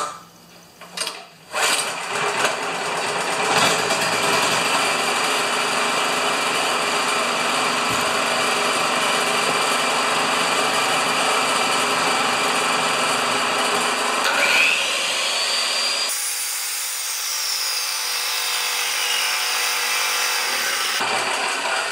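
Champion 4000-watt portable generator's gasoline engine pull-started on choke, catching within a couple of seconds and then running steadily at a loud level. About three-quarters of the way through, the sound changes abruptly and turns thinner.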